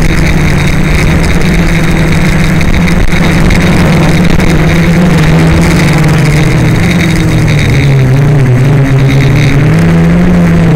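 DJI Flame Wheel F450 quadcopter's four electric motors and propellers buzzing loudly, heard up close from the camera on board, the pitch wavering up and down as the throttle changes through the turns.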